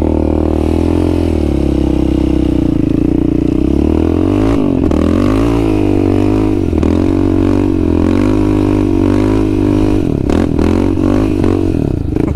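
Yamaha Raptor 700 ATV's single-cylinder engine revving, its pitch rising and falling repeatedly as the throttle is worked, while the bald tires spin and slide on grass without traction.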